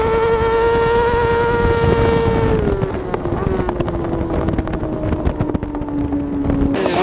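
Suzuki GSX-R1000 superbike's inline-four engine held at high revs under full throttle. About two and a half seconds in, the pitch drops as the throttle is rolled off, and it winds steadily lower as the bike slows.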